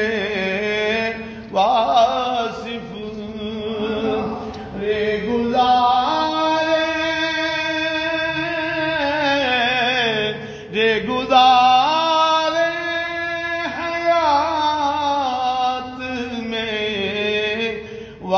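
A man sings an Urdu naat solo, drawing out long held notes that waver and glide between short breaths.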